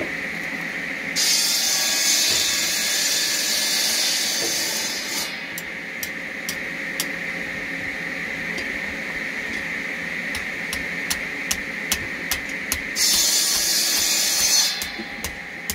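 Two spells of loud, even hissing, the first about four seconds long and the second under two seconds near the end, over a steady high whine. Between them come light, irregular metallic clicks.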